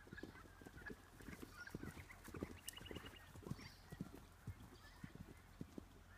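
Hoofbeats of a ridden horse on grass: faint, irregular dull thuds.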